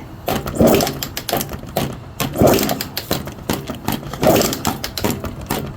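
Suzuki RMX250 two-stroke single being kicked over repeatedly, about one kick every two seconds, to check for spark; it turns over but does not fire.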